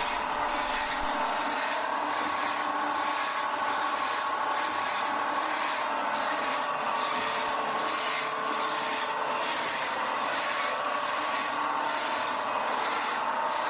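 1995 DoAll C-305 horizontal bandsaw running steadily as its blade saws through a 12-inch steel I-beam: an even grinding hiss of the blade in the steel over a steady machine hum.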